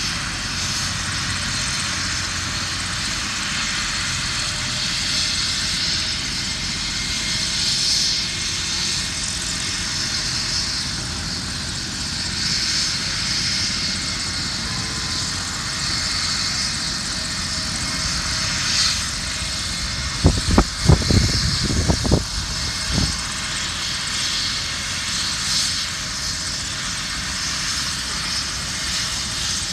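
Helicopter running with a steady engine and rotor noise. A quick run of loud knocks breaks in about two-thirds of the way through.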